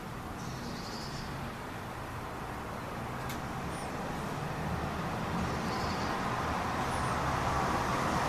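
Outdoor rushing rumble that grows gradually louder, with a few faint high chirps and one sharp click about three seconds in.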